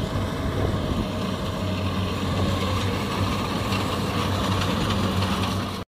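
Kubota DC-60 combine harvester's diesel engine running steadily under load while it cuts and threshes rice, a constant low hum with machinery noise over it. The sound cuts off suddenly at the very end.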